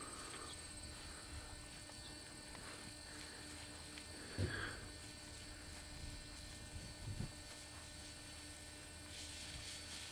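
Faint, steady electrical hum, with two brief dull thumps about four and seven seconds in.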